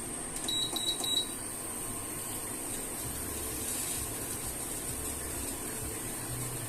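Three quick, high electronic beeps from an appliance's control panel, then a steady low hiss and hum.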